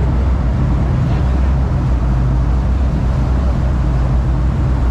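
Ferry boat's engine running under way with a steady low drone, while it belches black exhaust smoke: the engine is failing. Rushing wake water and wind noise run underneath.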